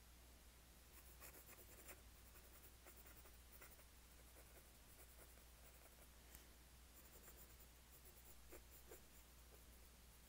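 Faint scratching of a pencil drawing on paper, in short irregular strokes, over a low steady hum.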